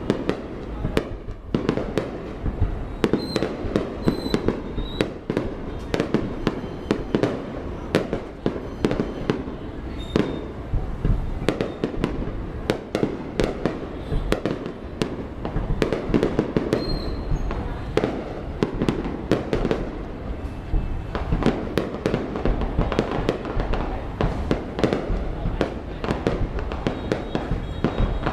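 Aerial fireworks display: a rapid, unbroken barrage of bangs and crackles, several reports a second overlapping one another, with a few short high whistles among them.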